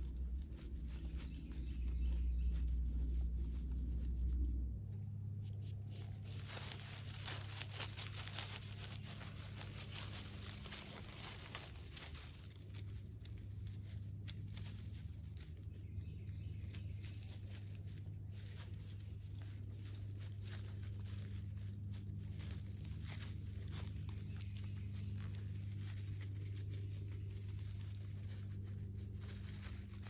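Nine-banded armadillo rooting through dry leaf litter: irregular rustling and crackling. A low rumble runs under it for the first few seconds and stops abruptly.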